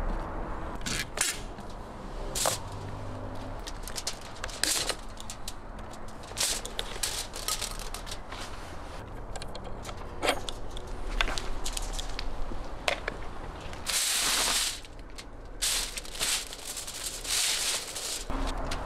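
Metal clicks and clinks from a rotisserie spit's clamps, thumbscrews and rod as they are loosened and handled. A louder rustling noise lasts about a second roughly three-quarters of the way in, with a shorter one soon after.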